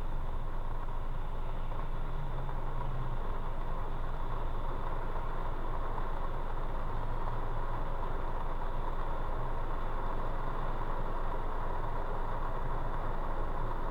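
Steady engine and road hum of a car, recorded from inside the cabin by a dashcam, unchanging throughout.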